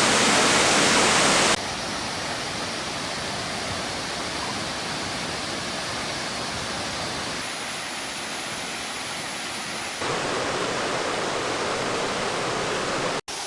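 Waterfall: a steady rush of falling water, its level stepping abruptly down about one and a half seconds in and back up about ten seconds in, with a split-second dropout near the end.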